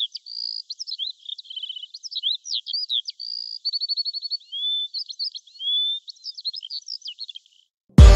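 A songbird singing continuously: varied high whistled phrases, slurred notes and rapid chirping trills, which cut off a little after seven seconds in. Loud electronic music with a heavy bass beat starts right at the end.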